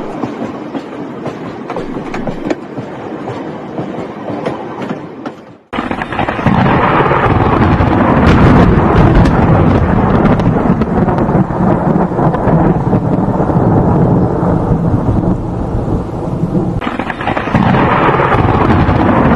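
Train running with a rattling clatter that fades out about five and a half seconds in, then a sudden cut to loud, dense rumbling noise that dips briefly near the end and returns.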